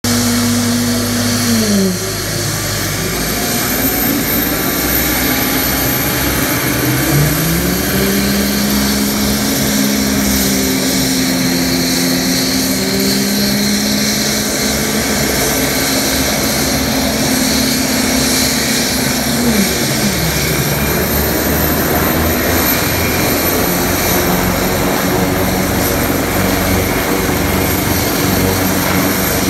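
AW189 twin-turbine helicopter running on the ground, a steady loud mix of turbine whine and rotor noise. A lower tone underneath shifts in pitch a few times, falling about two seconds in, rising near eight seconds and falling again near twenty.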